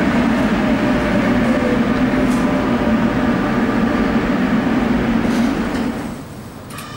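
Tram running, heard from inside the saloon: a loud, steady rumble of wheels on rail and running gear, with a faint steady whine above it. About six seconds in it drops to quieter street sound.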